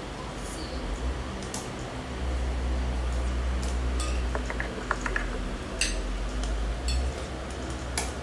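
A plastic serving spoon scooping cooked noodles around a metal pot, with a few light knocks and clinks against the pot, over a steady low hum.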